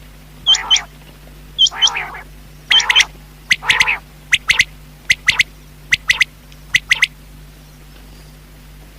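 Rain quail calling: pairs of short, sharp, high notes repeated about once a second, with harsher, lower, grating calls mixed in during the first few seconds. The calls stop about seven seconds in.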